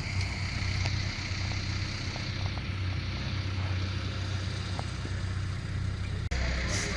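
Vehicle engine running steadily, with a low even hum and a brief dropout about six seconds in.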